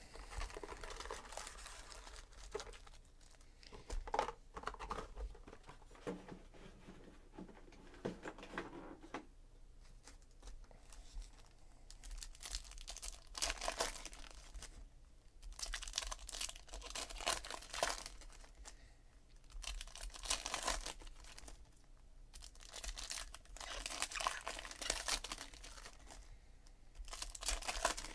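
Foil wrappers of 2017 Panini Donruss Optic baseball card packs being torn open and crinkled by hand, in repeated bursts of crackling a second or two long, every few seconds.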